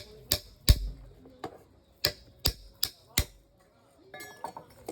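Blacksmith's hammer striking metal in forging: sharp blows about three a second, the loudest a little under a second in, a brief pause, then four more blows in quick succession, with fainter clinks near the end.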